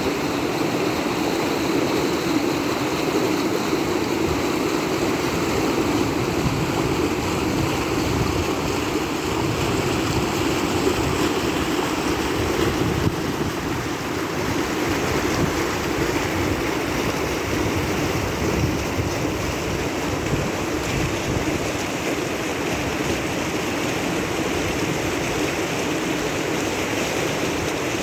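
Ganges river water flowing, a steady, even wash of water noise.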